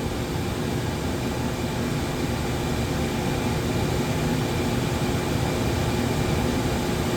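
Furnace draft inducer motor running with a steady whirring hum while the burner stays unlit, a sign that the gas valve is failing to open.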